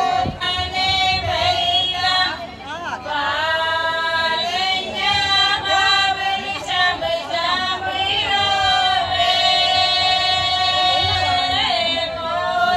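Punjabi women singing a folk song without instruments, the lead voice carried through a microphone in long, drawn-out held notes.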